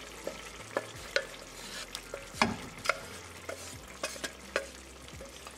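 Wooden spatula scraping and knocking inside a pressure cooker pot as cooked split chickpea dal is scooped out, with several sharp clicks spread through. Underneath, a faint sizzle from the tadka in the pan on the gas.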